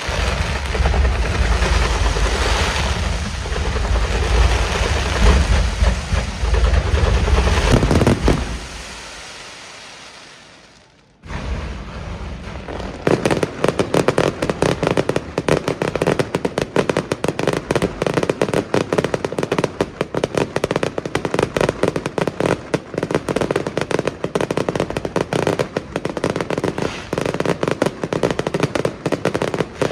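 Fireworks display: for the first several seconds a loud, dense, deep rumble of bangs that dies away around nine to eleven seconds in. Then, from about eleven seconds, a rapid, unbroken crackle of many sharp bangs in quick succession.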